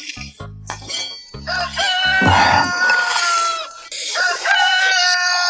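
A rooster crowing twice, each crow a long drawn-out call of about two seconds that sags slightly in pitch toward its end, over background music.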